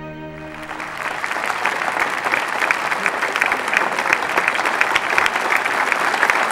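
Audience applauding, the clapping starting as a held chord of music dies away and growing louder over the first couple of seconds.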